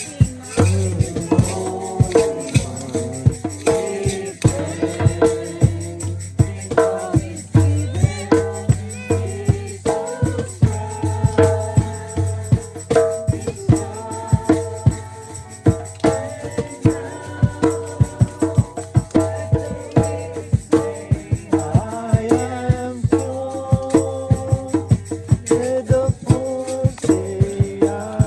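Music with a steady percussion beat under a moving melody.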